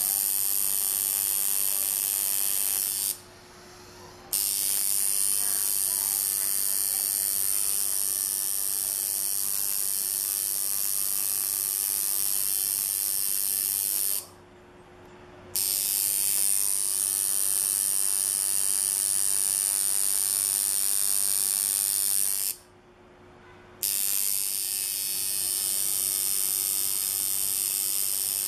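Tattoo machine buzzing steadily while outlining a tattoo in black ink, a high electric whine over a low hum. It stops abruptly three times for about a second each and then starts up again.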